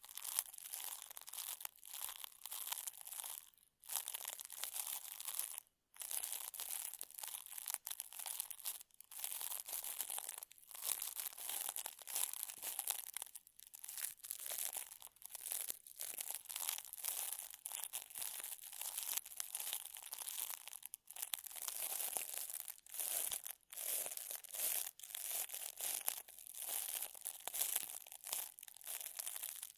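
Close-miked crinkling and scratchy rustling, a dense run of short crackles of the kind used as layered ASMR sound effects. There are brief pauses about four and six seconds in.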